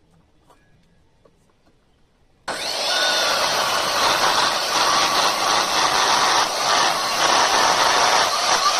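Electric wood planer switching on abruptly about two and a half seconds in and running loud and steady, with a faint whine, as it planes wood; a few faint ticks before it.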